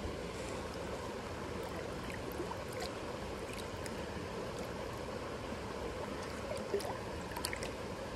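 Creek water flowing steadily, with a few faint brief ticks.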